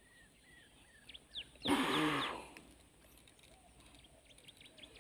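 Small birds chirping faintly, broken about two seconds in by a short, loud burst of noise.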